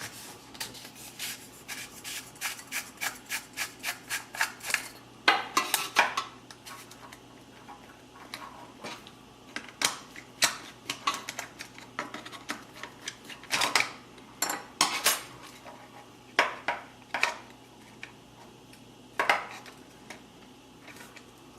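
Hot air gun handle being taken apart with small hand tools: a run of quick, even clicks, about five a second, over the first few seconds, then scattered sharp clicks and knocks of metal and plastic.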